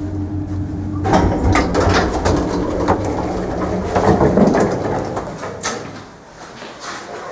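Passenger elevator with a 4AH-180 hoist motor arriving at a floor: the motor's steady hum cuts off about a second in, then a run of clatter and sharp knocks as the doors open and someone steps out, dying down near the end.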